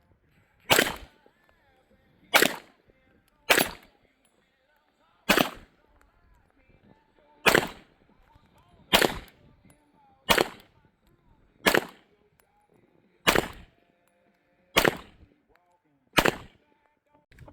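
Gunshots fired one at a time in slow, steady succession, eleven shots about a second and a half apart.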